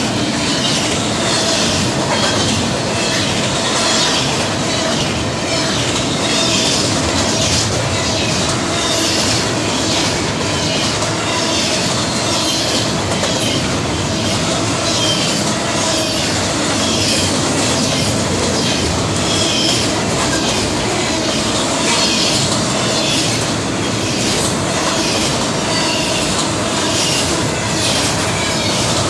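Union Pacific intermodal freight train's cars rolling past at speed: a steady loud rumble with rapid repeated clicks of wheels over the rail joints and a faint wheel squeal.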